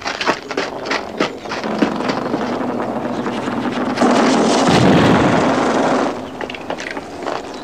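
Action sound effects of an armed assault: a string of sharp gunshots, then a loud blast about four seconds in with a rush of noise lasting about two seconds, as a smoke charge goes off.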